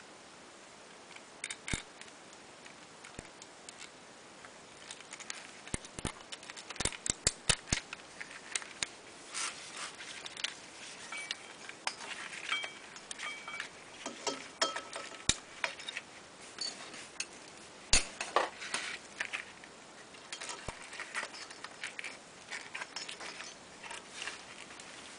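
Irregular small clicks, taps and light metallic knocks of an ignition coil, its bracket and wires being handled and fitted beside a small engine's flywheel by gloved hands, with one sharper click a little past the middle.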